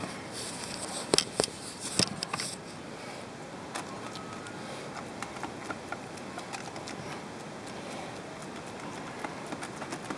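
Ground-meat kebab burger patty sizzling and crackling faintly on aluminium foil on a grill, with small ticks throughout. A few sharp clicks and foil crinkles come in the first two seconds, the loudest about one and two seconds in.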